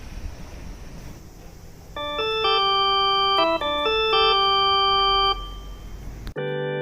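An electronic chime tune of several held notes, followed about six seconds in by a sustained organ-like chord.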